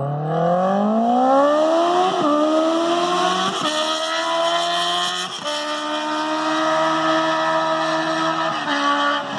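Honda CB650 inline-four with an open straight-pipe exhaust, loud and accelerating hard: the revs climb and drop back at gear changes about two, three and a half and five and a half seconds in, then the note holds steady before one more change near the end.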